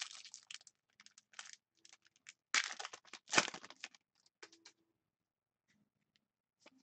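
A trading card pack's wrapper being torn open and crinkled by hand, then the cards slid out and shuffled, in irregular crackles with two louder rips near the middle.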